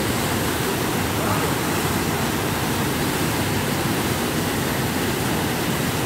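Waterfall pouring into a rocky plunge pool: a steady rush of falling water.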